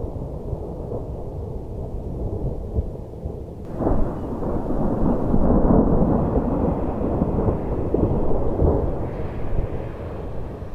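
Thunder rumbling low, then a sudden crack about four seconds in that swells into a long, louder rumble and eases off near the end.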